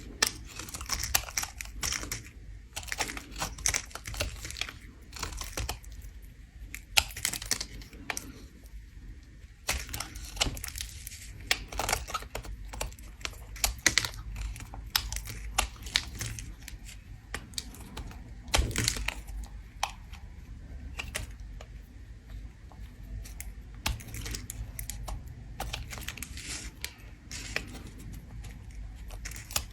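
A bar of soap being scraped: a steady run of crisp, irregular scraping strokes and crackles, several a second.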